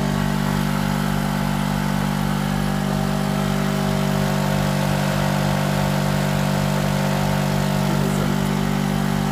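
Small generic Chinese two-stroke petrol generator (650–850 W) purring steadily under the load of a 600 W oil-filled heater. It runs with an even note and no knock from the piston or big end, the sign of a sound engine.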